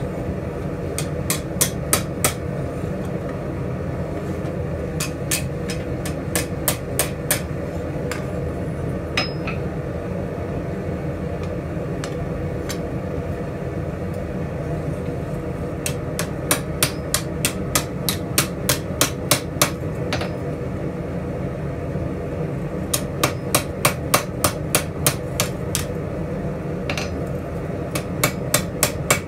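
Hand hammer striking a hot steel ladle on an anvil, in five runs of quick ringing blows about three a second with pauses between, over a steady low background noise.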